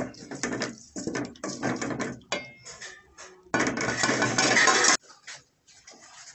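Wooden spoon stirring tomatoes and onions frying in an aluminium pot, scraping the metal in a run of short strokes with a brief metallic clink a little after two seconds. About three and a half seconds in comes a louder, denser stretch of scraping lasting over a second, then only faint small knocks.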